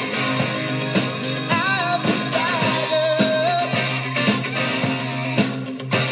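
Rock music with guitar over a steady drum beat, with a melodic lead line in the middle.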